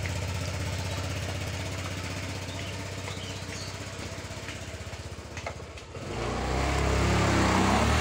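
A vehicle engine idling with a steady low pulse, slowly getting quieter. About six seconds in a louder, rougher engine sound rises and holds.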